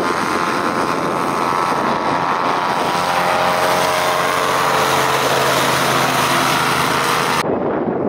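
Christy 463 PC hovercraft running at speed, its thrust and lift engines and fan making a loud, steady drone with a high whining tone. The drone cuts off suddenly near the end, leaving gusty wind noise on the microphone.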